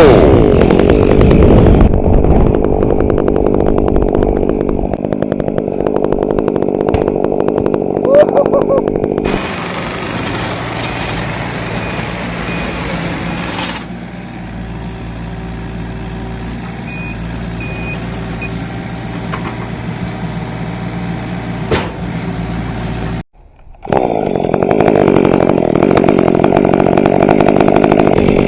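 Chainsaw running. It drops from full revs at the start and runs on steadily. About nine seconds in it changes abruptly to a quieter stretch, there is a brief dropout about 23 seconds in, and then it returns louder.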